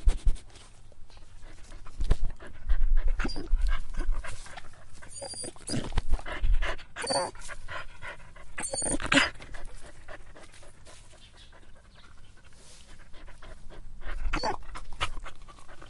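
A dog panting in irregular bursts, with a few short high-pitched whimpering cries between them.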